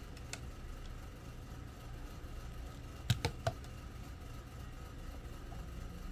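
Three small, sharp clicks in quick succession about three seconds in, as a fishing float rig with its hook and weight is set into a small glass tank of water, over a steady low hum.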